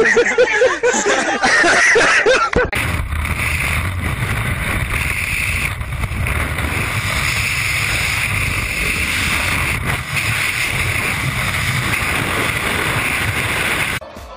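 A man laughing for about two and a half seconds, then a steady, heavy rush of wind on a skydiver's helmet camera in freefall, which cuts off near the end.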